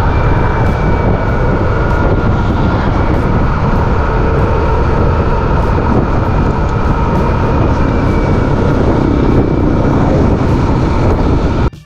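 Steady noise of a vehicle travelling on the road, with heavy wind rumble on the microphone. The sound drops out briefly near the end.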